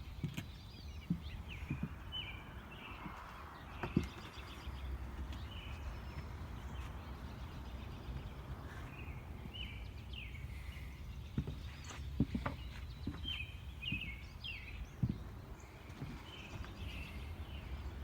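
Small birds chirping in short repeated calls over a low steady outdoor rumble, with a few scattered knocks.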